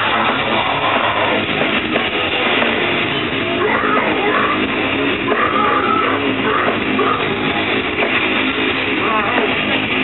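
Live deathcore band playing loudly: distorted guitars and drums heard from the crowd, with yelling over the music in the middle.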